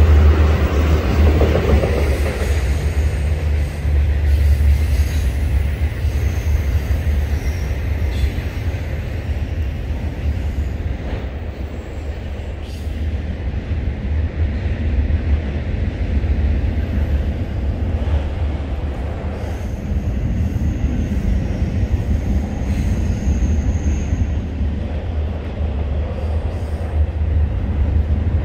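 Passing train rumbling steadily, with a faint high squeal for a few seconds past the middle.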